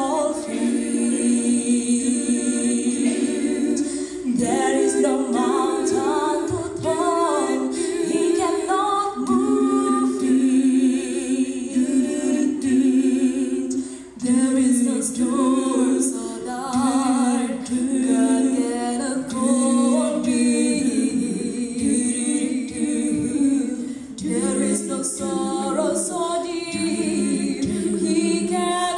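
Mixed choir of men and women singing a cappella in harmony: long held chords in phrases, with short breaths between phrases about four, fourteen and twenty-four seconds in.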